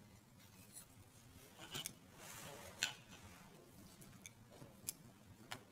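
Faint, sharp clicks and light rustling as small circuit boards and their connectors are handled and pressed together by hand, about six clicks in all, the loudest about halfway through.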